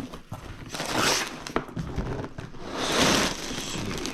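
Packaging of a LEGO set being handled: plastic and cardboard rustling and crinkling, with small clicks and two stronger surges of rustling about a second in and about three seconds in, as the box is unpacked.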